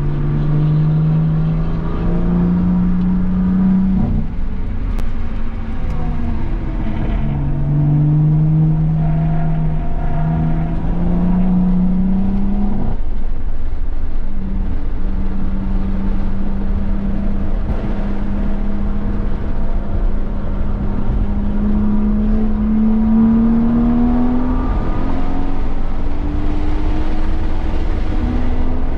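2017 BMW M240i's 3.0-litre turbocharged straight-six pulling under acceleration, its note climbing in pitch over long stretches and breaking off about four and thirteen seconds in, over steady road and wind noise.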